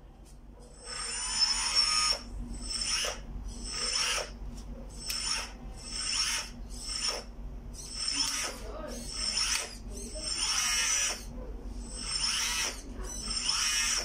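RC hydraulic skid steer loader's pump and valves whining in about a dozen short bursts, each half a second to a second long, with the pitch bending up and down, as the bucket is tilted in small steps.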